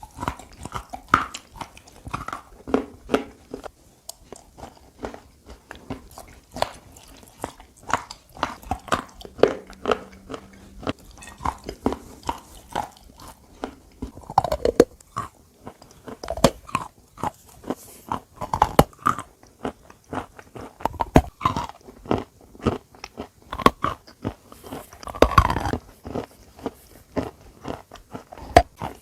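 A person biting into and chewing a piece of white chalk: irregular sharp crunches with softer crumbly chewing between them, and a few louder bites.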